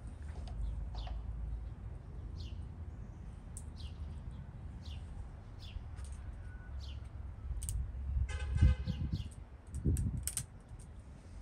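Small birds chirping over and over, short downward-sweeping calls, over a low steady outdoor rumble. Late on, a brief rattle and two soft knocks, the loudest sounds, as things are handled at the cooking pot.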